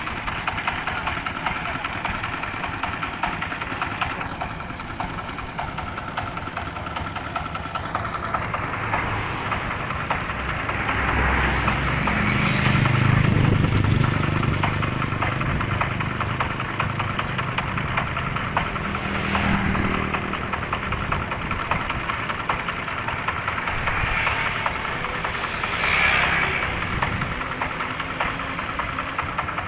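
Diesel-powered rice threshing machine running steadily. The sound swells louder for a few seconds near the middle, and briefly twice more toward the end.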